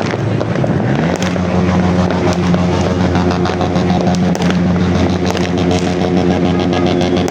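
A motor engine running steadily, its pitch rising about a second in and then holding, with scattered crackles of fireworks over it.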